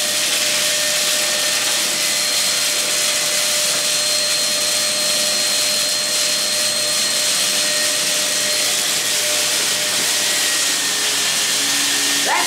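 Dirt Devil Power Reach bagless canister vacuum running steadily, a constant motor whine over the rush of suction, as its floor head is worked back and forth over carpet.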